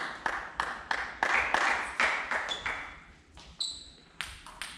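A steady run of sharp taps, about two and a half a second, echoing in a large hall, that thins out about halfway and gives way to a few scattered clicks and a brief high ping.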